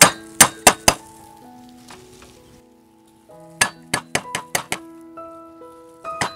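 Kitchen knife chopping down on a wooden chopping block, mincing ginger: sharp knocks, four in the first second, then after a short pause a quick run of about eight and a few more near the end. Instrumental background music plays underneath.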